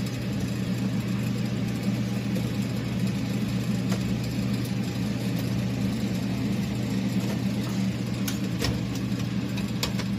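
Steady electrical hum and fan noise of a running commercial refrigerator standing open, with a few light clicks near the end as the plastic tray on its wire shelf is handled.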